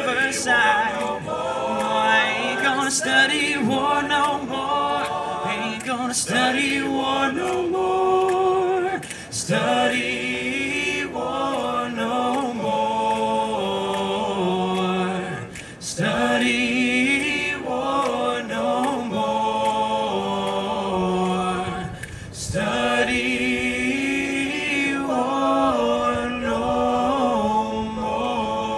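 All-male a cappella group singing in close harmony through microphones, in phrases broken by brief pauses for breath.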